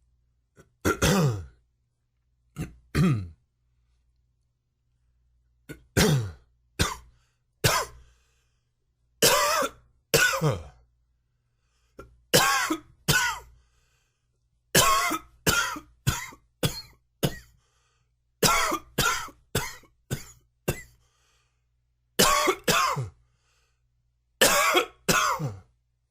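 A man coughing in a prolonged fit: short bursts of one to five coughs every few seconds, about two dozen coughs in all. The uploader tags it as a smoker's cough.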